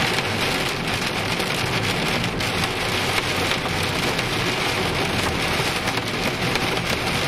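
Hail and heavy rain pelting the car's windshield and roof, heard from inside the cabin: a dense, steady clatter of small impacts.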